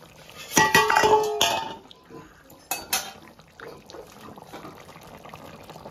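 Metal lid of a cooking pot clattering and ringing as it is lifted off and set aside, followed by two sharp clinks about a second apart. A faint bubbling of the simmering curry follows.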